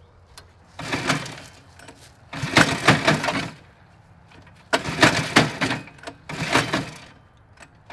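Recoil pull-starter on the go-kart's Honda clone engine pulled repeatedly, each pull a short rasping crank. The engine does not catch between pulls.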